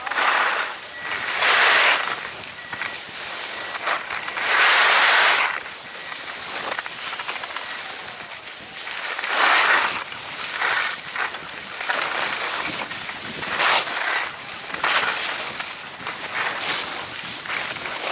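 Skis scraping and hissing over groomed snow on a downhill run, the hiss swelling into a louder rush at each turn, every few seconds.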